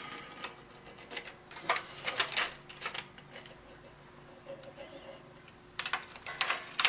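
Hobby-knife blade cutting and scraping along thin FEP plastic film stretched on a resin-printer vat frame: a scatter of small, irregular clicks and scratchy scrapes.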